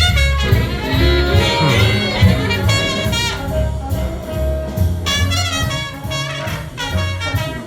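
Jazz with brass, trumpet to the fore over a strong bass line, played back over hi-fi speakers from a vinyl record on the turntable.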